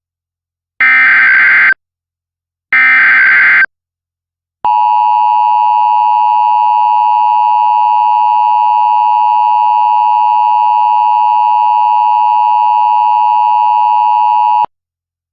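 Emergency Alert System broadcast tones: the last two of the three SAME header data bursts, each about a second of warbling digital noise, then after a short pause the EAS two-tone attention signal, held steady for about ten seconds before cutting off suddenly. This is the signal that opens a civil danger warning.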